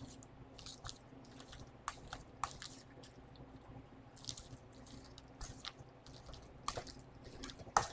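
A fork mashing boiled eggs, cheese spread and mayonnaise in a stainless steel bowl: soft squishing with irregular light clicks and scrapes of the fork against the bowl, the sharpest one near the end.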